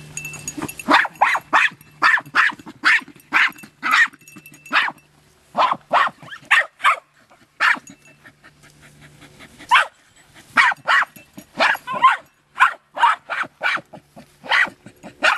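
Jagdterriers barking in quick runs of sharp, repeated barks at an armadillo they are working, with a short pause a little past the middle.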